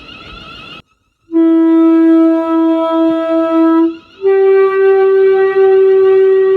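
A train's warning horn sounding two long, steady single-note blasts, the second a little higher in pitch, after a brief silence about a second in.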